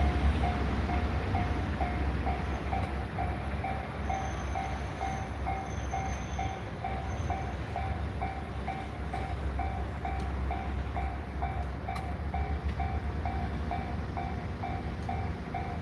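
Japanese railway level-crossing warning bell ringing steadily, about two and a half rings a second, over the low rumble of train traffic at the crossing.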